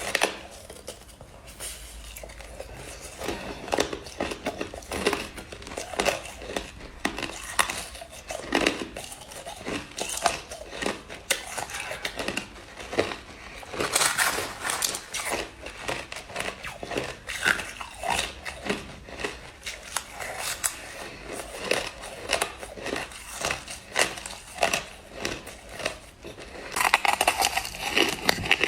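Crushed ice being chewed, with repeated sharp, irregular crunches.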